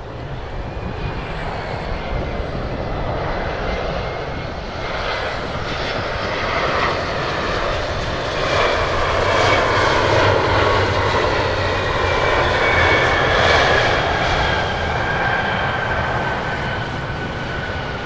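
Embraer E170 twin jet landing and rolling out. Its engine noise builds to its loudest about halfway through, then eases, with a high whine that slowly falls in pitch.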